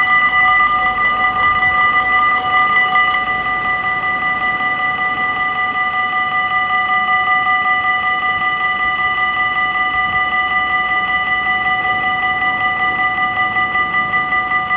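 Level-crossing warning bells at a Dutch automatic half-barrier crossing ringing continuously, a fast steady ring on fixed pitches that warns road traffic that a train is coming. The ringing gets a little quieter about three seconds in.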